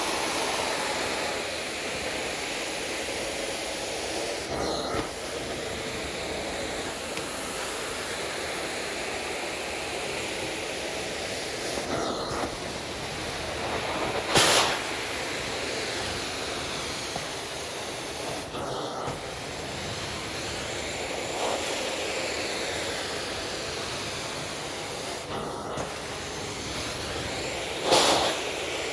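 Carpet extraction wand drawing air and water through its vacuum head on a synthetic rug: a steady rushing hiss of suction. It dips briefly every several seconds and has two brief louder surges, about halfway through and near the end.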